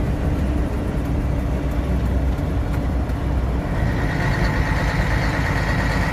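Scania truck running steadily down the highway, a continuous low engine drone with road noise. About four seconds in, a steady higher tone and a hiss join it.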